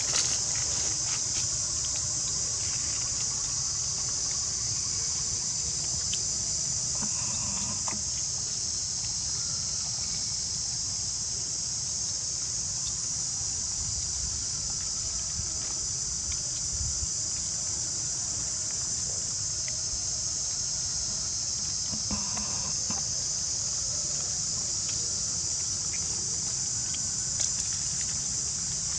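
Steady, high-pitched chorus of insects, unbroken and even, with a low rumble and a few faint clicks beneath it.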